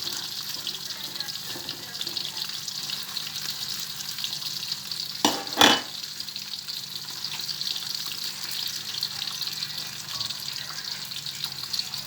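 Jackfruit pieces without batter frying in hot oil in a pan: a steady crackling sizzle. Two sharp knocks stand out a little past halfway.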